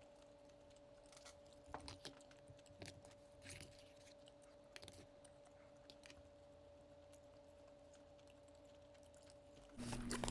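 Near silence: a faint steady hum with a few soft clicks and taps scattered through. Shortly before the end a louder low hum comes in.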